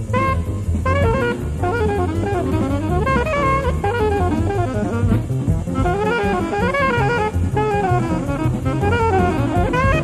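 Fast bebop jazz heard on an off-air cassette recording: an alto saxophone plays quick running lines that rise and fall, over a busy drum kit and bass.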